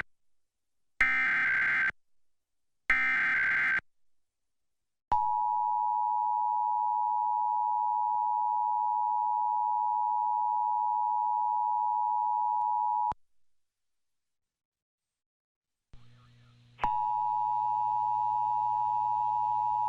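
Emergency Alert System test broadcast. First come two short SAME header data bursts, about a second each and a second apart, which end a three-burst header. Then the steady two-tone EAS attention signal (853 and 960 Hz) holds for about eight seconds and cuts off, and about four seconds later the attention tone starts again over a low hum near the end.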